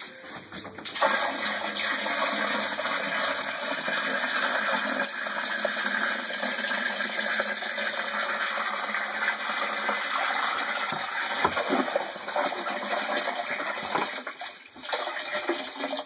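Water poured from a plastic bucket into a partly filled sump pit, splashing steadily into the water. The pour starts about a second in and stops near the end.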